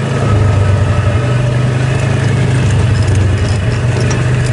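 Vehicle engine running steadily, a loud low drone with a rough noisy wash over it, as heard from the vehicle itself.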